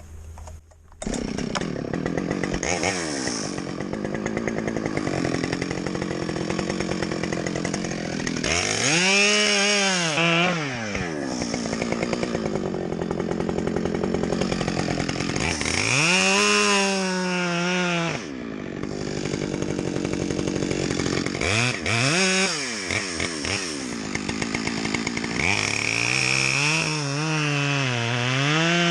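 Chainsaw running and being revved into cuts in tree trunks. It picks up about a second in, then climbs to full revs and drops back about four times as it saws through the wood.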